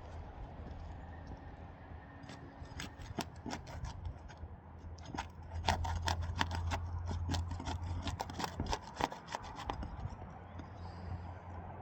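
Brittle asphalt roof shingles crackling and scraping as their sealed tabs are slowly pried and peeled apart: a dense run of small cracks and ticks, thickest in the middle, over a low steady hum.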